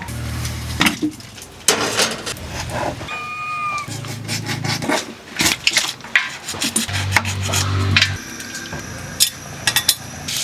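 Pots, dishes and metal utensils clattering and knocking, with short scraping sounds between the knocks. A brief high call cuts in about three seconds in.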